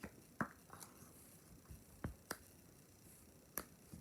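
Silicone pop-it fidget toy being pressed: about six faint, sharp pops at uneven intervals.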